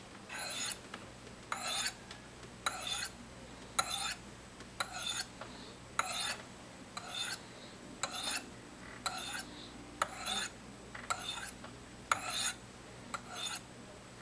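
Knife edge drawn down the flat faces of the fine white ceramic rods of a Spyderco Sharpmaker, alternating sides of the V: a short scrape with each stroke, about one a second, around thirteen strokes. These are the final honing passes on the fine rods.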